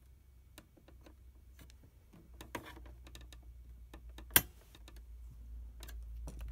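Small flathead screwdriver tip clicking and tapping against a metal E-clip on a steel pin in the printer's carriage frame, a few light ticks, then one sharp metallic click about four seconds in as the E-clip snaps onto the pin.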